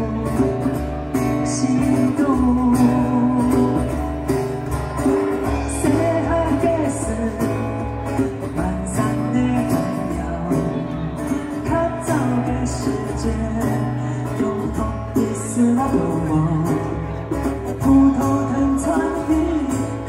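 Live acoustic song: a man singing over a strummed acoustic guitar, with a djembe hand-drum beat.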